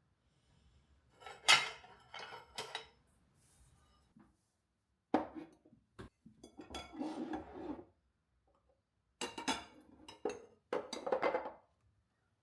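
Dishes and cutlery clinking and clattering as they are handled, in three bunches of knocks and rattles with quiet gaps between.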